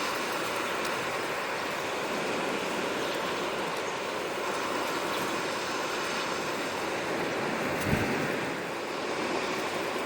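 Sea waves washing ashore in a steady rush, with a short low thump about eight seconds in.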